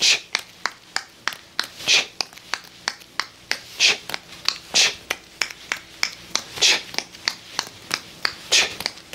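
Juggling balls slapping into the hands in a steady rhythm, about three catches a second, during the claw trick, where each ball is snatched palm-down from above. Every second or two a louder, hissier slap stands out.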